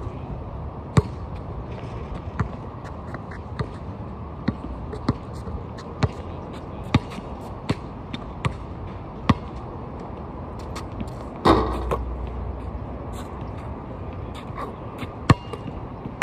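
A basketball being dribbled, with sharp bounces coming a little under a second apart. A longer, louder rush of noise comes about halfway through.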